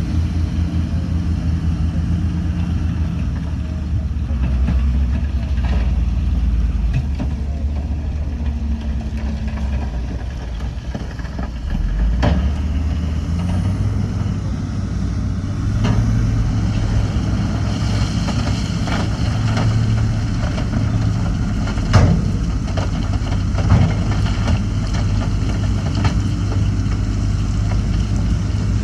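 Heavy diesel engine of earthmoving machinery running steadily, its note rising slightly about twelve seconds in, with a few sharp knocks, the loudest about twenty-two seconds in.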